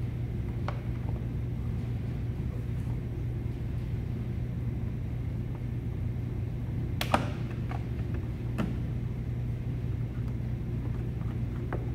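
Sharp plastic clicks and knocks as a new air filter is worked into a car's plastic air box housing. The loudest is a cluster about seven seconds in, with single knocks before and after. A steady low hum sits underneath.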